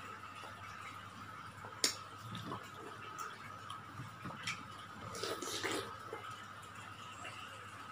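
Mouth sounds of a person biting and chewing juicy melon, with soft wet clicks and smacks and one sharp click about two seconds in. A faint steady tone runs underneath.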